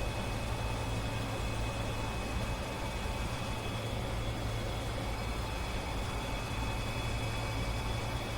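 Steady cockpit noise of an Airbus A310 in the climb: an even rush of airflow and engine noise over a constant low hum, with a few faint steady whine tones above it.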